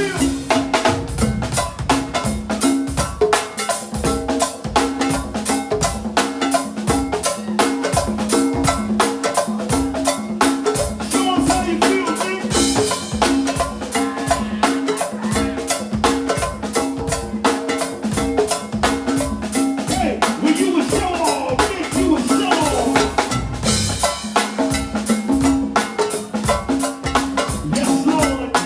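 Music with a steady, fast drum beat and a repeating bass-and-melody pattern.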